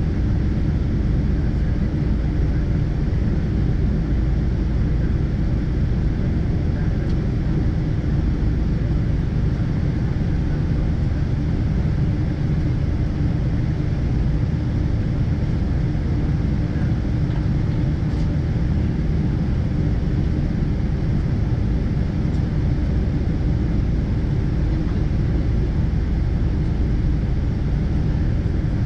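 Steady drone of a Boeing 777-200ER's Rolls-Royce Trent engines and airframe rumble heard inside the passenger cabin.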